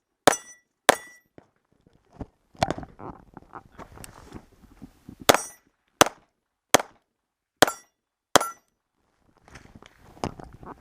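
Pistol shots fired at steel targets, each with a short metallic ring. Two shots come near the start, then a string of five roughly 0.7 s apart in the middle, with softer knocks in between.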